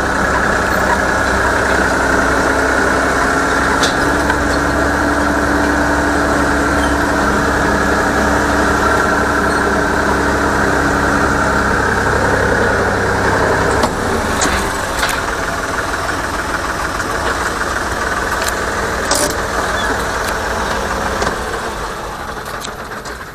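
Tractor-driven Aktaş pumpkin-seed harvesting machine running: a steady, loud mechanical engine drone while it empties its seed load. About 14 s in, the low hum drops and the sound eases off gradually toward the end.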